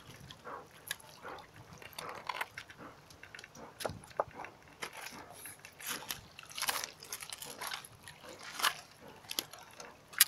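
Irregular crunches and clicks close to the microphone, a few louder ones in the second half.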